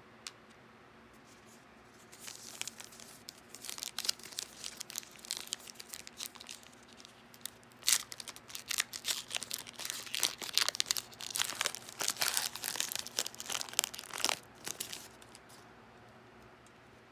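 Foil wrapper of a Panini Revolution trading-card pack being crinkled and torn open by hand. A light crackling starts about two seconds in. It turns into louder, dense crackling and tearing from about eight seconds in, and stops about fifteen seconds in.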